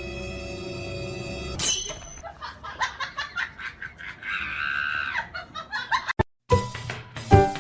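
Edited-in music and sound effects: a held chord for the first couple of seconds, a quick swish, then a run of short taps and clicks, and a brief break near the end before the music starts again.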